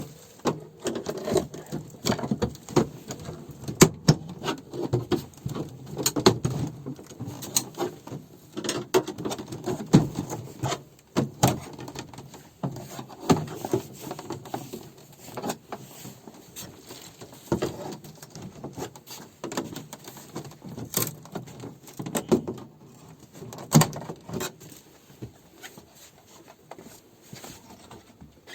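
Hand-handling noise: irregular knocks, clicks and rustling as objects are moved and set down.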